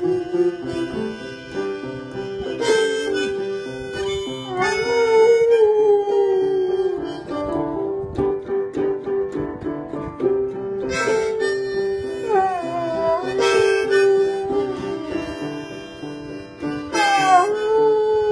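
Dog howling along to a harmonica: held harmonica notes, with several howls from the dog that slide up and down in pitch over them.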